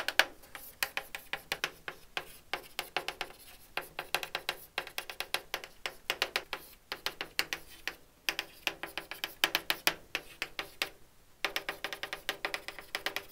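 Chalk writing on a blackboard: quick runs of taps and scratches as each stroke is drawn, in clusters with short pauses between them.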